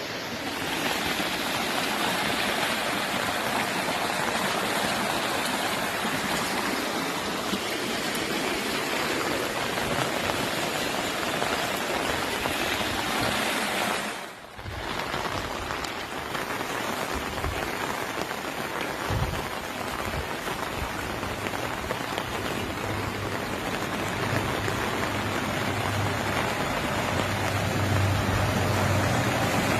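Heavy rain pouring down steadily, with a brief dip in level about halfway through.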